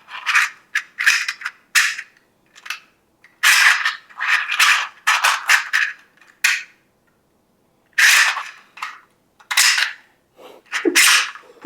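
A 3D-printed plastic fidget toy being worked by hand: sharp plastic clicks and snaps in quick bursts, with short pauses between them.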